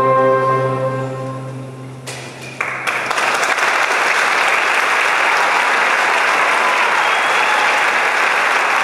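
The symphony orchestra's final held chord fades away over about two seconds. The audience then bursts into applause, which swells and keeps going steadily.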